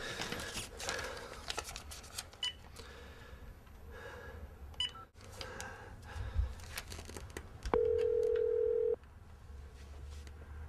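Cordless phone being picked up and dialled: soft handling clicks and two short keypad beeps, then a loud, steady telephone tone lasting just over a second, about three quarters of the way through.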